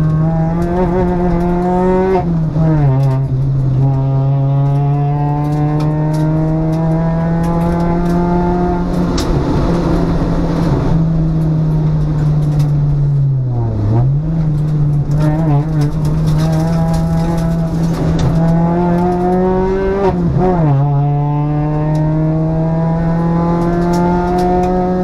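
Citroën DS3 R1 rally car's four-cylinder engine running hard at high revs, heard from inside the cabin. The pitch drops sharply about two seconds in and again about twenty seconds in. Around the middle it dips briefly and climbs back.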